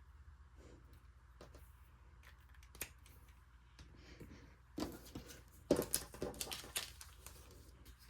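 Hands handling paper and small card embellishments on a tabletop: faint scattered clicks, then a cluster of sharper clicks and short rustles about five seconds in.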